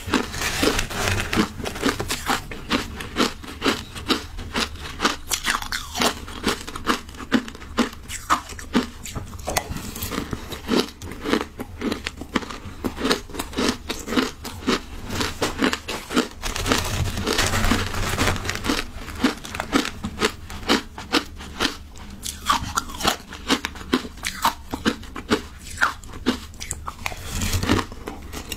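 Shaved ice crunching as it is chewed close to a clip-on microphone: a steady run of sharp crunches, about two a second, with busier stretches now and then.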